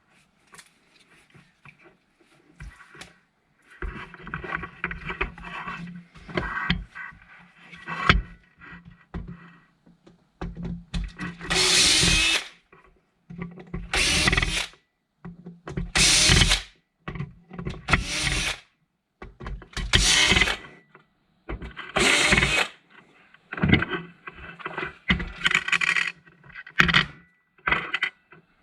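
Power drill running in repeated trigger bursts of about a second each, roughly one every two seconds in the second half, after a stretch of quieter, irregular running with clicks and clatter.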